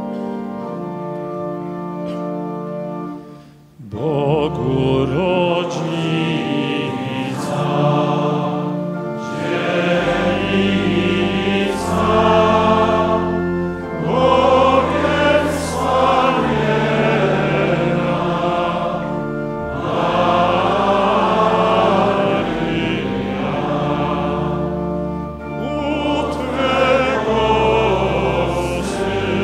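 A choir singing a slow hymn with a steady low accompaniment. It begins after a held opening chord that breaks off about three and a half seconds in.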